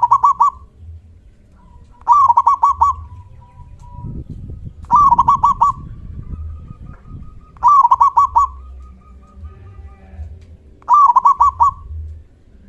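Zebra dove (perkutut) cooing. There are five phrases two to three seconds apart, each a quick run of four or five ringing notes.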